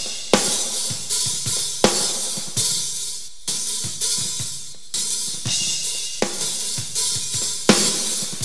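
Recorded snare drum track played back: snare hits over a wash of hi-hat bleed with faint bass drum behind them, the snare hits and the noise between them now on separate tracks and summed again.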